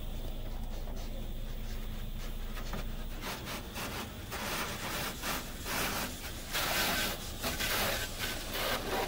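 Spray from a Hydrospray Rainmaker car wash's spinning sprayers hitting the car, heard from inside the cabin: a steady low hum, then from about three seconds in, uneven hissing gusts of water on the glass that grow loudest near the end.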